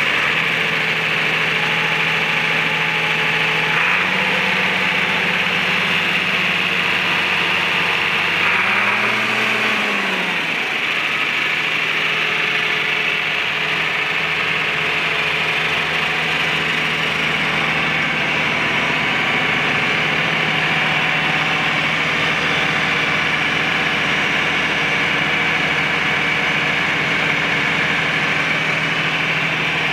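1966 Farmall 1206's six-cylinder turbo diesel running at a steady idle with a steady high whine alongside. The engine speed steps up slightly about four seconds in, and the engine briefly revs up and back down around nine seconds in.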